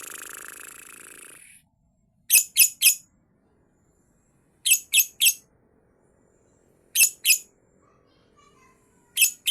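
A lovebird giving loud, sharp, high chirps in quick bursts of two or three, repeated every couple of seconds. A hissing rush fades out during the first second and a half.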